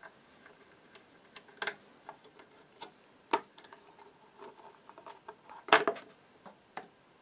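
Small scattered clicks and taps of a screwdriver working the screws of a Janome MyExcel 18W sewing machine's plastic bottom cover, with a louder cluster of plastic clatter about six seconds in as the cover comes away.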